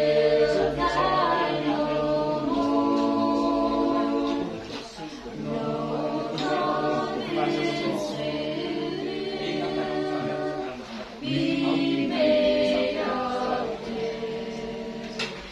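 A small congregation singing a hymn a cappella, unaccompanied voices holding long notes line by line, with short breaths between phrases about five and eleven seconds in.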